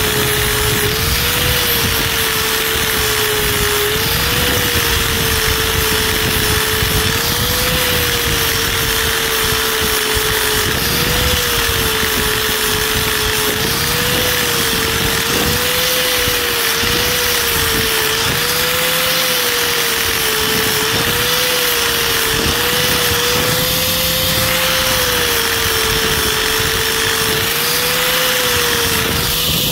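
Angle grinder with an 80-grit flap wheel running steadily, sanding the rubber sidewall lugs off an RC crawler tire in light passes. Its whine wavers slightly in pitch every few seconds as the wheel is worked against the rubber.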